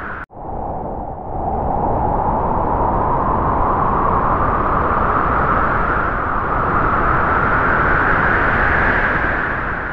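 Howling-wind sound effect: a steady rushing noise whose pitch slowly rises. It cuts out for an instant just after the start and begins to fade near the end.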